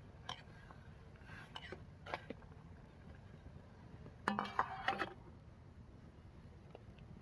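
Kitchenware clinking: a few light knocks and clicks, then a quick cluster of sharp clinks with a short ring, like cups or a glass being set down and touched together, a little past halfway, over a faint steady low hum.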